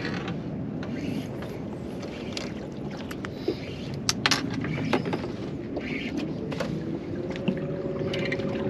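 Water lapping and slapping against a small boat's hull, with wind on the microphone and scattered sharp clicks and knocks. About six and a half seconds in, a motor's steady hum joins and rises slightly in pitch.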